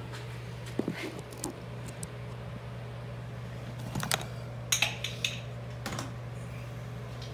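Handling noise: scattered light clicks and knocks as a phone camera is moved about and propped against a portable jump starter, over a steady low hum. The knocks come in small clusters about a second in and again between four and six seconds.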